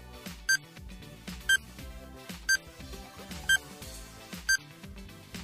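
Countdown-timer sound effect: a short, high beep once a second, five in all, over steady background music.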